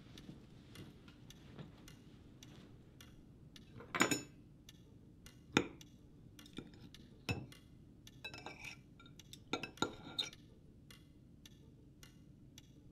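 Metal fork and knife clinking and scraping against a ceramic dinner plate a few times, with a clock ticking steadily in the background.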